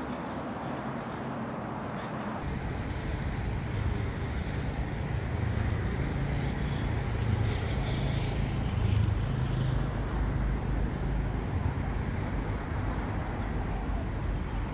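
Steady road traffic noise with a low rumble, louder after an abrupt change about two seconds in.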